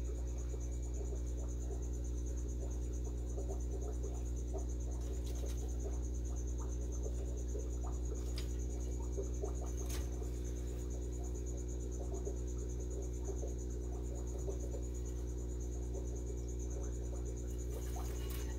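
A cricket trilling steadily at a high pitch over a low, steady electrical hum, with a few faint clicks.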